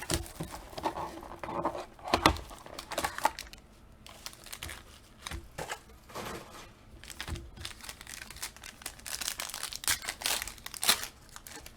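Trading card packaging torn open and crinkled by hand, in irregular crackles that are loudest near the end.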